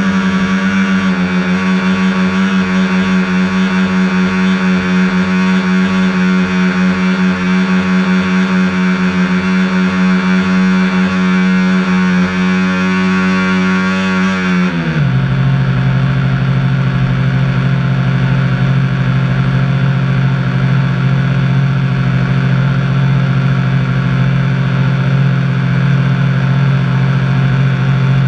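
Neptune RC boat's dual brushed electric motors running hard, a loud steady whine with many overtones over a hiss of water spray, heard from on board. About halfway through the whine drops suddenly to a lower steady pitch and keeps going.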